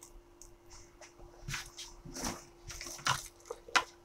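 Handling of a smartwatch and small repair tools: a few sharp clicks and taps, the loudest near the end, over a faint steady hum.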